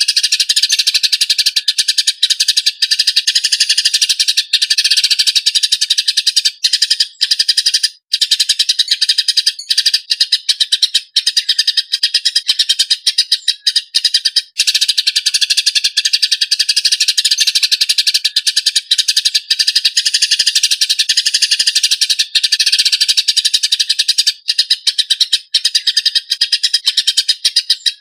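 Eurasian tree sparrows (burung gereja) giving fighting calls: a fast, dense, rough stream of chirps with only brief breaks.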